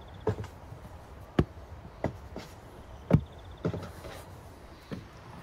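Dough balls being set down and pressed onto a floured wooden table: about seven soft thuds at irregular intervals, the loudest a little after three seconds in.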